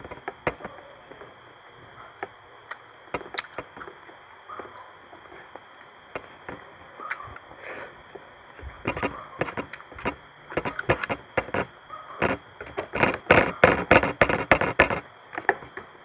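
Close-up mouth sounds of eating squid adobo with rice by hand: chewing and wet lip-smacking clicks, sparse at first, then coming thick and loud in the second half and stopping shortly before the end.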